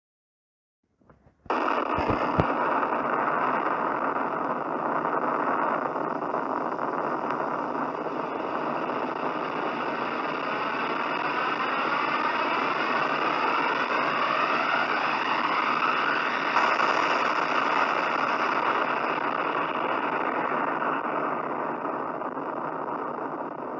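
Sustained roar of a nuclear bomb explosion, starting suddenly about a second and a half in with a low thud, then holding steady and easing a little near the end.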